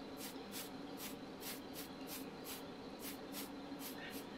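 Faint steady hum of a spray booth's fan, with short, evenly spaced hisses of spray about three a second as primer goes onto a die-cast toy part.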